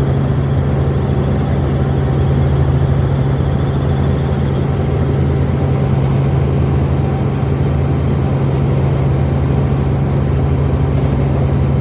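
Helicopter engine and rotor heard from inside the cabin in flight: a loud, steady drone with a strong low hum.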